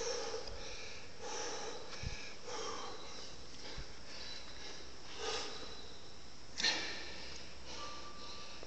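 A man's heavy breathing while lifting dumbbells: short, forceful breaths every second or two, a sharper one later on, with a couple of dull low knocks.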